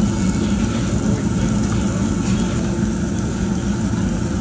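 Steady low rumbling background noise with no distinct events, typical of a busy restaurant room.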